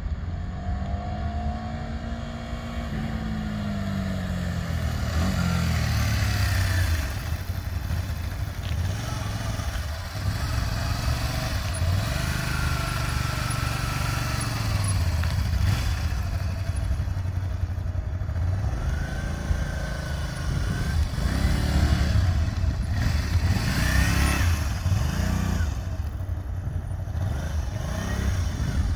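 1987 Honda VT250 Spada's 250 cc V-twin on its stock exhaust, ridden by: the engine pitch rises and falls again and again as the rider accelerates, changes gear and slows.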